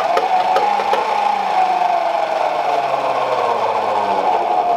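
Treadle lathe's flywheel and spindle spinning freely under their own momentum, a steady whirring hum that slowly drops in pitch as they coast down, with a few light ticks in the first second. The axle turns freely in a freshly reamed hole in the wooden frame, where it used to rub and creak.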